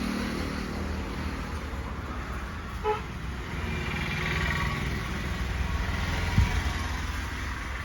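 Road traffic running steadily, with a short horn-like toot about three seconds in.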